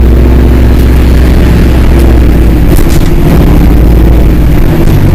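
Bus engine running at a steady low speed: a deep, even drone with a faint high whine above it.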